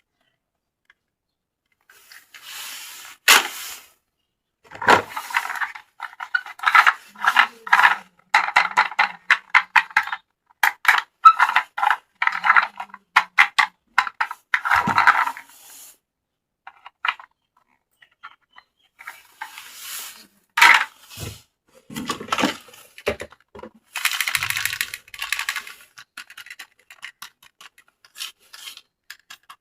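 Toy unboxing handling: plastic packaging crinkling and hard plastic toy parts clicking and scraping in quick, irregular clusters, with a lull about halfway through.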